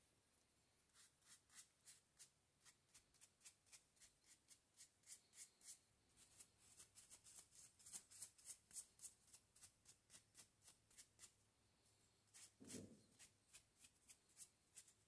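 Faint, quick swishes of a bristle brush stroking liquid finish onto small pine pieces, about three strokes a second, with one duller knock near the end.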